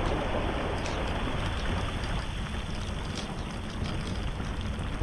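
Steady patter and hiss of rain on the boat and microphone, mixed with wind buffeting the microphone and a low rumble as the bass boat is towed on its trailer.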